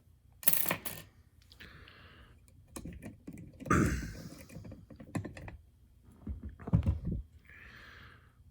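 Euro profile lock cylinder and picking tools being handled just after the lock was picked open: sharp metallic clicks and knocks, the loudest about half a second in, heavier knocks about four and seven seconds in, and two short soft hisses.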